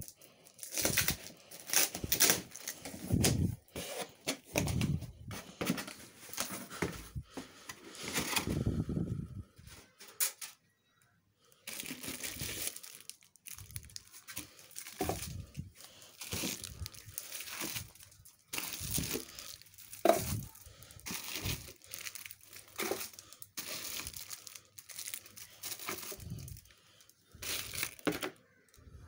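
A cardboard box and its plastic wrapping being torn open and handled: tearing, crinkling and rustling in irregular bursts, with a short pause about ten seconds in.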